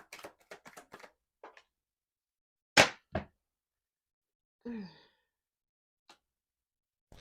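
Tarot cards being shuffled and handled: a quick run of card clicks, then two loud thunks about half a second apart, and a short sigh with falling pitch about five seconds in.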